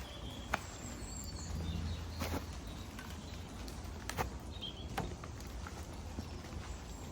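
Outdoor garden ambience: a low steady background with scattered light knocks and clicks, and a few short bird chirps.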